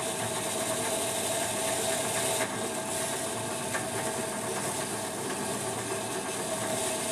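Bench drill press motor running steadily with a constant hum, while an old Champion N21 spark plug held by hand against the tool in the chuck is ground clean, giving a hissing grind. The grind drops away briefly about two and a half seconds in.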